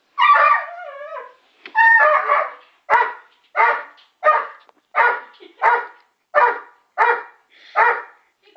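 Working Springer Spaniel barking. It opens with a long, wavering whine-yelp, then settles into a steady run of sharp barks about one and a half a second.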